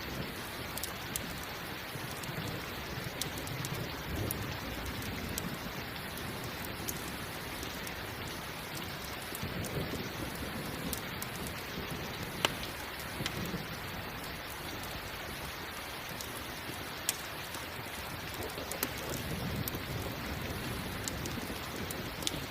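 Steady rain mixed with a crackling campfire: scattered sharp pops over the rain's hiss, the loudest about twelve seconds in, with low rumbles of thunder now and then.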